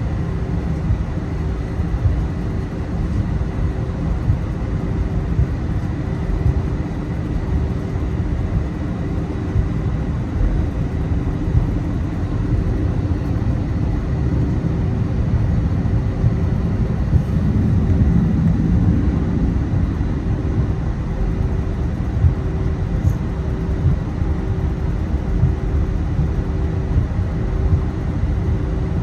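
Jet airliner cabin noise from the engines and airflow: a steady low rumble with a faint even hum above it, swelling slightly about two-thirds of the way through.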